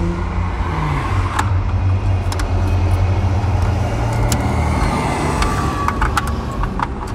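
A vehicle engine running with a steady low hum; its pitch falls away about a second in, and a few small clicks sound over it.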